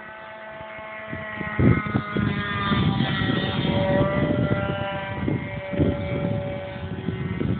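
Engine of an RC pylon racer in flight, a high-pitched whine that grows louder as the plane comes closer, its pitch holding nearly steady with small shifts. Low buffeting thumps run underneath from about one and a half seconds in.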